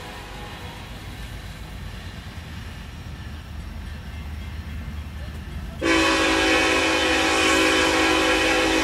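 Norfolk Southern SD70ACe locomotive's air horn sounding one long, loud chord that starts about six seconds in and is held to the end. Before it there is only a low steady rumble.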